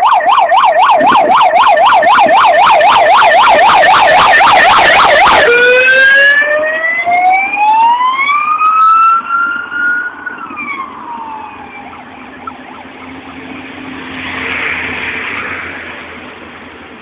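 Siren on a vehicle approaching along the race road: a fast up-and-down yelp, switching about five seconds in to a slow wail that rises, then falls and fades away. A brief swell of passing-vehicle noise follows near the end.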